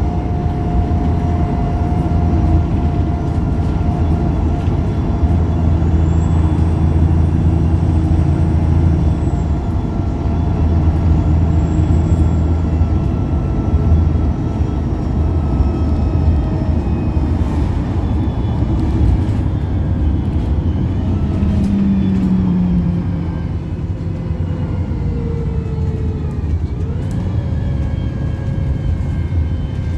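Wright Pulsar single-deck bus under way, heard from on board: the engine and drivetrain run with a steady low hum and a whine that slowly falls in pitch. About 27 seconds in, the whine dips and then climbs again as the bus picks up speed.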